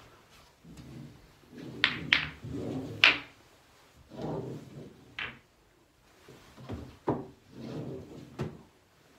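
Pool balls being handled and set together on a small home pool table: sharp clacks of ball striking ball, the loudest about two and three seconds in and another near five seconds, between duller thuds and rolls of balls on the table.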